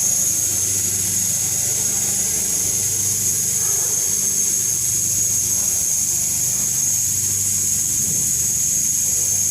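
Large refrigerator's compressor running with a steady low hum, under a constant high hiss.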